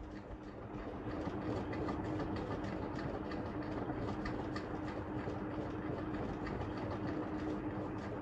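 A silicone spatula stirring flour and crushed nuts in a glass bowl, with many light clicks and scrapes against the glass, over a steady low hum.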